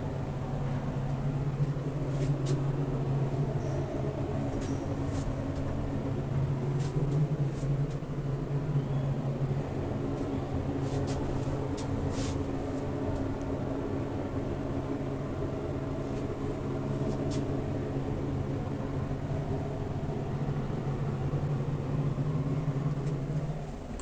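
Old FIAM roped-hydraulic elevator running during travel: its motor gives a loud, steady electric hum, with scattered clicks and rattles from the car. The hum cuts off about half a second before the end as the motor stops.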